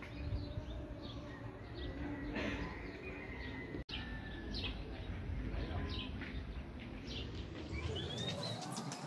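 Small birds chirping in many short notes, with a few brief whistled tones, over a steady low outdoor rumble. The sound cuts out for an instant about four seconds in.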